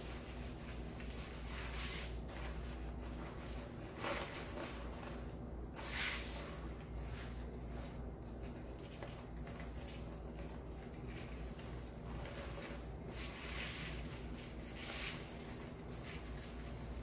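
Wired ribbon and deco mesh rustling and crinkling in several short bursts as hands tuck and twist them into place, the loudest about six seconds in, over a low steady hum.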